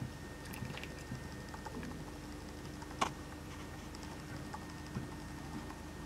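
Domestic cat chattering at the sight of birds: soft, irregular clicking of the jaw, with one sharper click about three seconds in.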